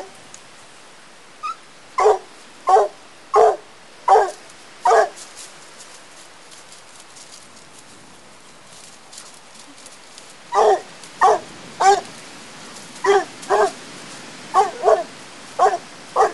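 Black and Tan coonhound barking at a raccoon: a run of five short barks, a pause of about five seconds, then a steadier run of about ten barks, each well under a second apart.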